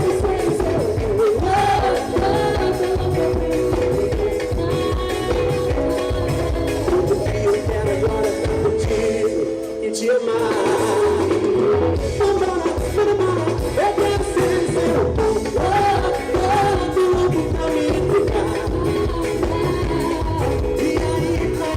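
Loud recorded music with singing and a heavy bass beat, played over a large sound system. The bass drops out briefly about ten seconds in.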